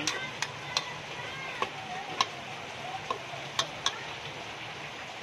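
Corned beef with garlic and onion frying in a pot, a steady sizzle, with a metal spoon clinking against the pot several times as it stirs.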